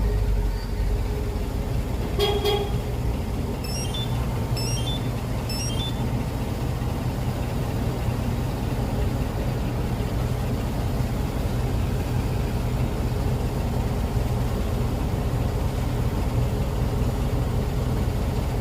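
Range Rover Sport SVR's supercharged 5.0-litre V8 idling steadily just after starting. A short toot sounds about two seconds in, followed by a few quick high-pitched beeps.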